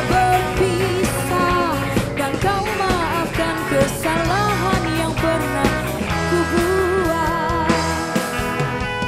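Live band playing a pop love song: a woman sings a wavering melody into a microphone over keyboard, electric guitars, bass and drums. About six seconds in the singing stops and the instruments carry on.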